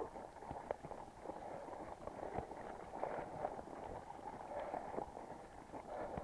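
Irregular clicks and knocks of a mountain bike and rider moving over a rough, muddy trail.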